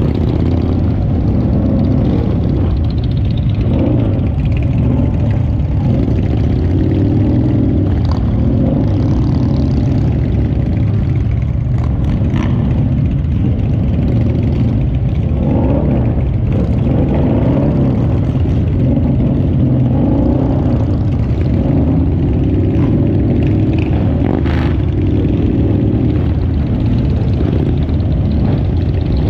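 A group of Harley-Davidson touring motorcycles' V-twin engines running at low speed in a slow-moving column, the riding bike's own engine closest. The sound rises and falls every few seconds as the riders roll the throttle on and off.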